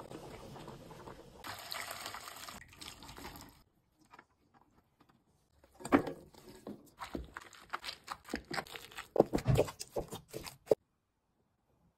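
Lamb stew simmering in a pot, a steady bubbling hiss that cuts off a little under four seconds in. After a pause, chickpeas and potatoes are ladled into a glass bowl and mashed: a run of irregular knocks and clicks that stops abruptly near the end.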